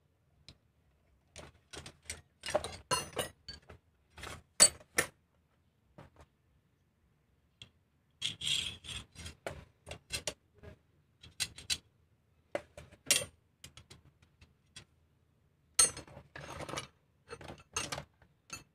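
Metal hand tools, air-brake tubing and fittings clinking and scraping as they are handled and worked, in irregular bursts of clicks and rubs with short pauses between and a few sharper metallic knocks.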